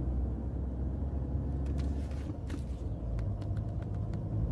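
Steady low road rumble inside a moving passenger van's cabin, with a few faint ticks about halfway through.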